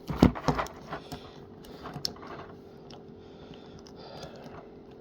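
Plastic action figure being handled and its limbs moved: a quick cluster of knocks and clicks in the first second, then a few scattered small clicks. A steady low hum runs underneath.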